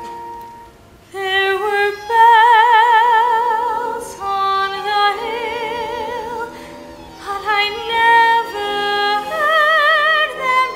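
A woman's soprano voice singing a slow stage ballad, entering about a second in, with wide vibrato on long held notes, over soft instrumental accompaniment.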